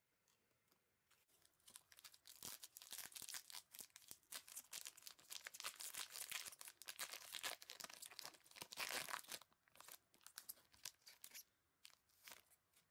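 A sealed plastic trading-card pack being torn open by hand, its wrapper crinkling densely for several seconds, thinning to scattered crackles near the end as the wrapper is handled.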